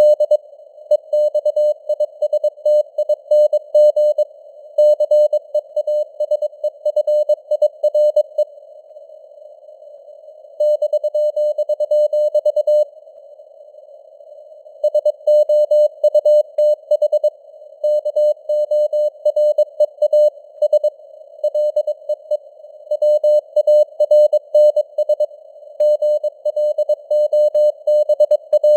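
Morse code (CW) sent at 22 words per minute as a keyed sine tone of about 600 Hz, over a narrow band of simulated radio receiver hiss. Twice near the middle the keying stops for about two seconds and only the hiss is left.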